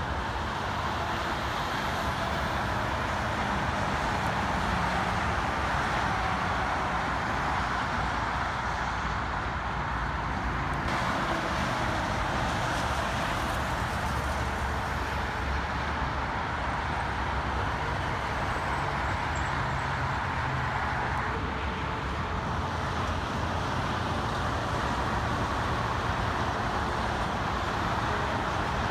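Steady multi-lane highway traffic: cars and diesel tractor-trailers hauling oversize loads passing with a continuous rush of tyres and a low hum of heavy-truck engines.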